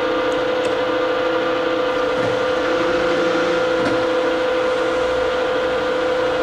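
Brown & Sharpe No. 2 universal horizontal milling machine running under power with its power feed engaged. The machine gives a steady mechanical hum with one strong held tone and no change in level.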